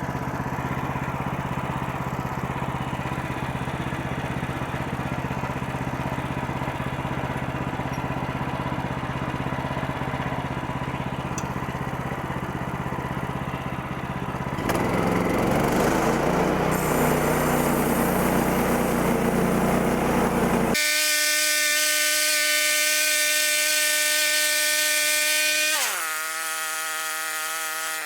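Bandsaw mill's gas engine running steadily, then louder about halfway through, with the blade running. For the last several seconds it becomes a steady whine of many even tones that dips in pitch near the end and comes back up.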